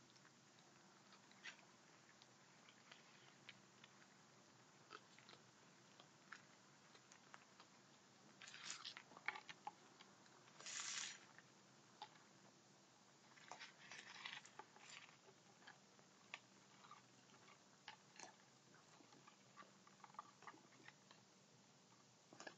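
Raccoons crunching and chewing dry pet kibble: faint scattered crunches and clicks, with a few louder bursts of crunching around the middle.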